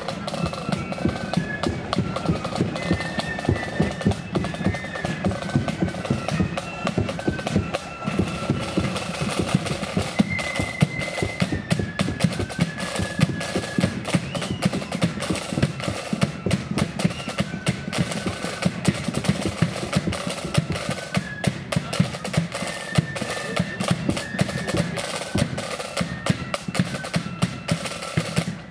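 Marching flute band playing a march on the move: flutes carry the melody over rapid snare drumming and a steady bass drum beat.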